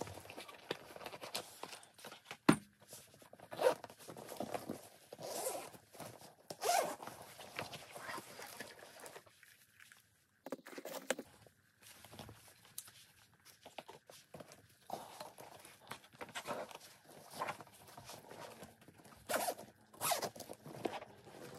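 Irregular rustling and scraping from handling, in short uneven strokes, with a brief dropout to silence about halfway through.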